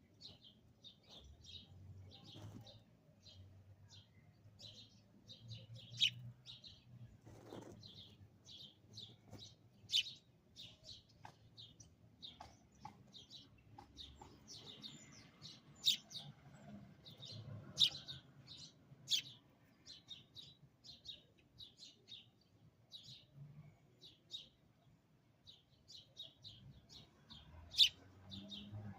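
Sparrow chirping in a quick, steady stream of short high chirps, several a second, with a handful of sharper, louder chirps scattered through.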